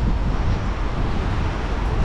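Wind buffeting the microphone: a steady, gusty rumble with an even hiss over it.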